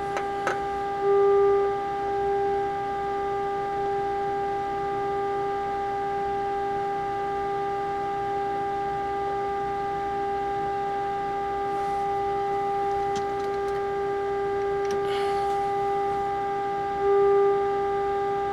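A steady test-tone whine from the Midwest Model 916 radio's loudspeaker, the residual AM modulation of the signal generator that the FM discriminator is being adjusted to reject. It swells louder briefly twice, about a second in and near the end.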